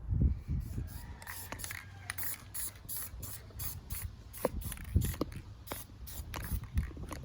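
Aerosol spray paint can sprayed in many short, quick bursts, laying down a second coat.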